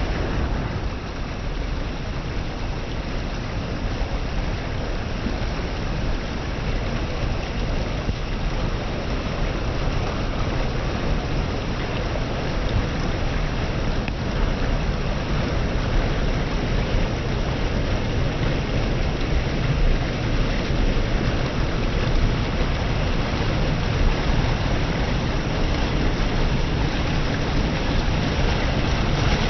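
Steady rush of fast-flowing river water, growing slightly louder over the stretch.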